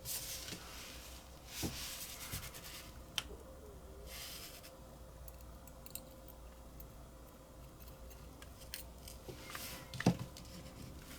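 Small metal lighter parts being handled at close range: light rustling and rubbing with scattered small clicks, and one sharper click about ten seconds in.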